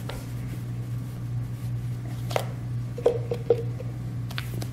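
A spoon scraping and scooping ice cream from a carton and dropping it into a plastic blender cup, with a few sharp clicks and three quick knocks, each with a short ring, about three seconds in, over a steady low hum.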